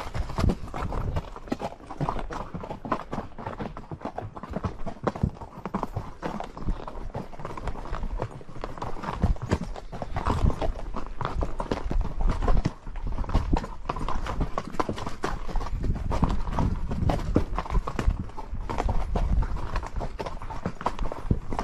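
Horse's hooves clip-clopping on a trail at a walk, a dense, uneven run of hoof strikes.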